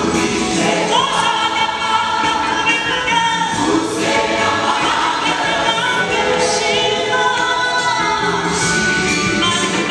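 Mixed choir of women and men singing gospel music together in long held and gliding phrases.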